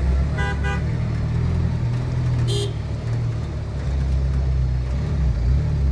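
Heavy city road traffic: a steady low engine rumble from buses, auto-rickshaws and cars, with vehicle horns. A short double honk sounds just under a second in, and a sharper, higher horn beep about two and a half seconds in.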